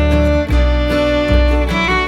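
Background music: an instrumental track with violin and guitar over a steady bass line.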